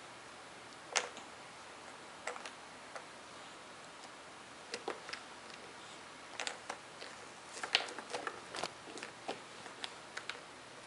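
Irregular light clicks and taps of a baby's fingers patting and picking at a plastic high-chair tray, in scattered clusters; the sharpest come about a second in and just before eight seconds in.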